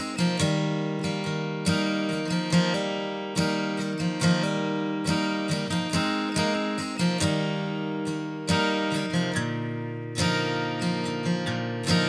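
Background music: an acoustic guitar playing strummed chords and picked notes at a steady pace.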